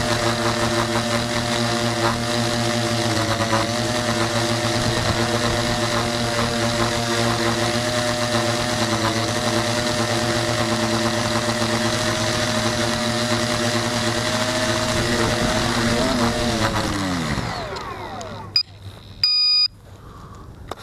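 Tricopter's electric motors and propellers whining steadily in flight, several pitches together. Near the end the motors spin down with the pitch falling away as it comes down onto the grass, followed by a couple of clicks and a short electronic beep.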